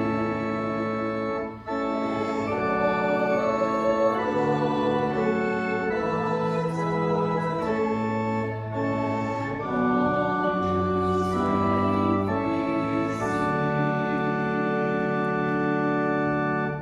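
Church organ playing a hymn in slow, sustained chords that change every second or so, with a brief break about two seconds in. It closes on a long held final chord that cuts off near the end.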